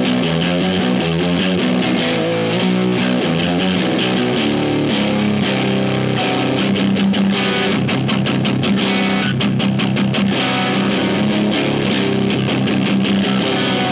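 Electric guitar in a low tuning, played with distortion through the Wyong Rd Electronics Keris overdrive/fuzz/boost pedal. It plays a quick riff of low single notes, then held low chords with a run of short, choppy chugs in the middle.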